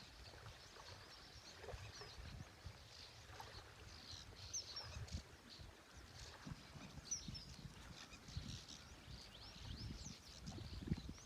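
Small birds chirping faintly with many short, high chirps, while a breeze gusts on the microphone as an uneven low rumble.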